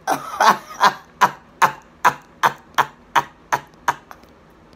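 Phone camera shutter clicking about ten times in an even run, roughly two and a half shots a second, as a series of thumbnail pictures is taken.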